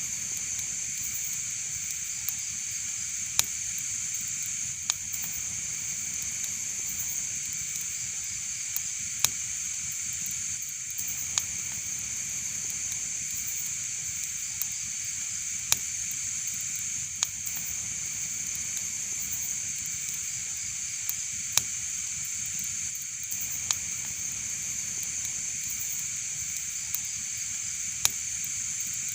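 Fireplace fire crackling: a steady hiss with sharp pops every second or two.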